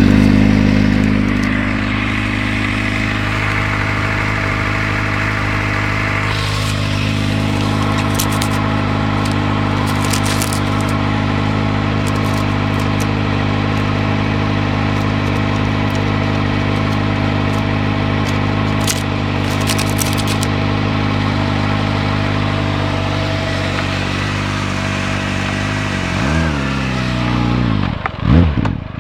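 Kawasaki ZX-6R (2007) 599 cc inline-four on its stock exhaust, idling steadily, with a few short clicks along the way. Near the end it is blipped several times, the revs rising and falling quickly.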